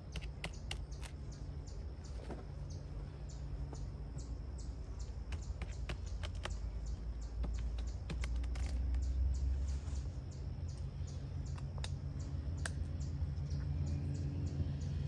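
Farm machinery engine running steadily in the background, growing louder near the end, with scattered sharp clicks and a bird chirping repeatedly.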